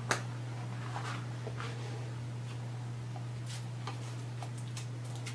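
Handling noise of a latex half mask and its velvety hood being pulled on and fastened at the neck: a sharp click just after the start, then scattered faint ticks and rustles, more of them near the end. A steady low hum lies under it all.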